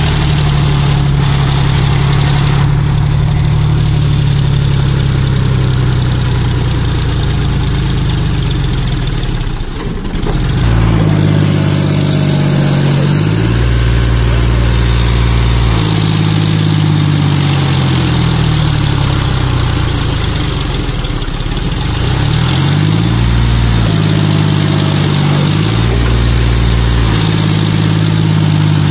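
John Deere 5036D tractor's three-cylinder diesel engine working hard, with its rear wheels in deep mud and a loaded soil trolley behind. It runs steadily at first, dips briefly about ten seconds in, then revs up and down again and again as it strains to pull free.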